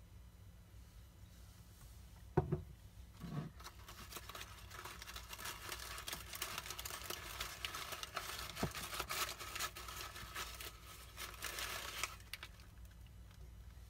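Two light knocks, then a paper coffee filter holding strained butter solids crinkling and rustling as it is crumpled and pulled off by hand for several seconds.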